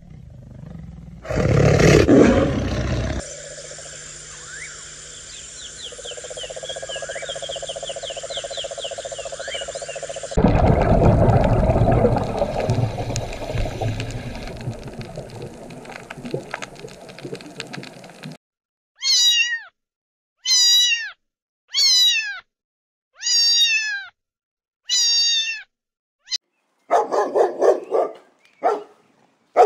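A run of separate animal sounds: a loud call about two seconds in and several seconds of steady noise, then a cat meowing five times in short falling calls, and a dog barking near the end.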